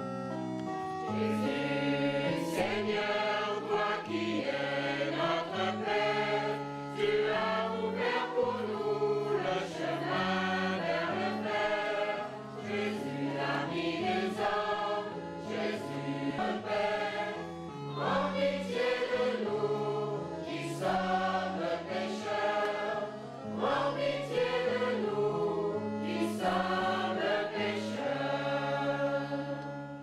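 Choir singing a church hymn over held low accompaniment notes; the music stops right at the end.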